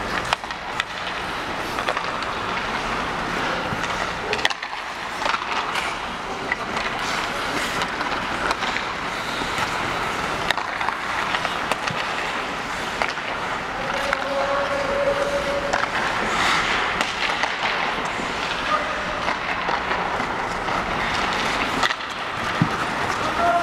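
Ice hockey skates scraping and carving on the ice, with sharp clacks of sticks and pucks scattered throughout, in a large empty arena.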